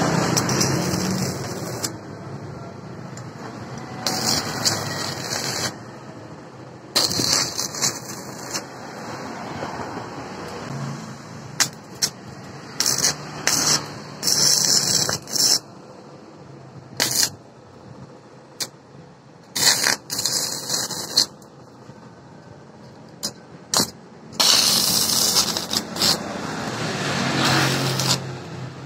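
Stick (MMA) arc welding with an inverter welder: the arc crackles and sizzles in irregular bursts of a second to a few seconds as welds and tacks are laid, with short sharp strikes of the electrode in between.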